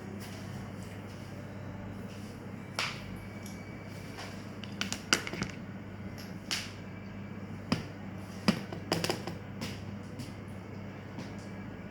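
Scattered sharp clicks and light knocks of items being handled, bunched into a quick run about five seconds in and another around eight to nine seconds, over a steady low hum.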